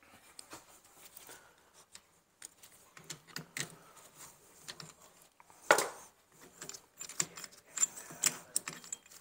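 Metal hand tools clinking and knocking at a rear brake caliper as the piston wind-back tool is worked loose and taken off. Irregular light clicks, one sharp clack about halfway through, then a quick run of clicks near the end.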